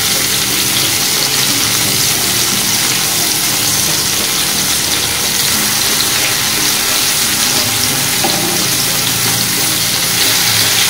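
Marinated chicken pieces sizzling steadily in hot oil in a non-stick pan over a low gas flame.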